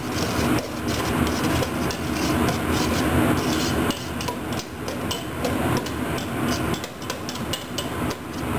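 Chopped onions sizzling in a stainless steel pot while metal tongs stir them, with frequent scraping and clinking of the tongs against the pot.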